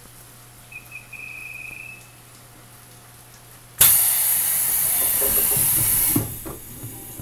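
Pneumatic doors of a JR Central 373-series electric train closing: a loud hiss of compressed air for about two seconds, with a few thumps as the doors slide shut. A faint high tone sounds about a second in.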